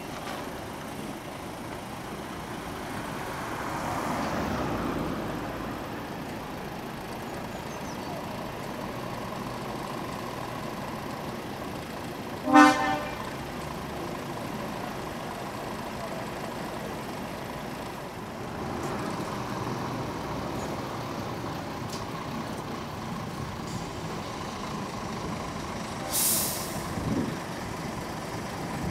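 Heavy trucks running and pulling past. About halfway through, a truck horn gives one short toot, the loudest sound. Near the end an air brake gives a brief hiss.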